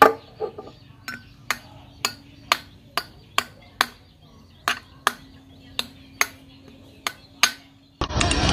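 Base of a glass bottle tapping on the metal crown cap of another bottle about two times a second, some fifteen sharp clinks, working around the cap's crimped edge to loosen it. Near the end the taps give way to loud music and voices.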